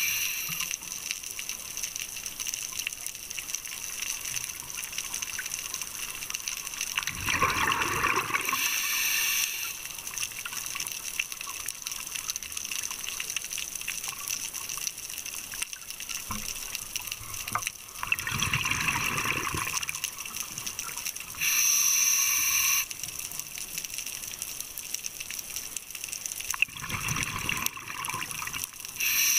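Scuba regulator breathing heard underwater: three slow breaths, each a rush of exhaled bubbles followed by the hissing draw of an inhale through the regulator, over a steady faint underwater hiss.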